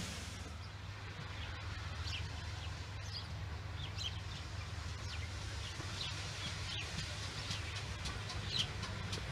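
Small birds chirping, short high calls repeated every second or so, over a low steady rumble from a steam locomotive drawing near.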